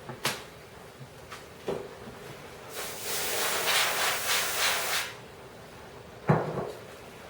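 Handling noises as a RAM module is released and pulled from a desktop computer's memory slot: a few light clicks, about two seconds of rubbing noise, then a single sharp knock near the end.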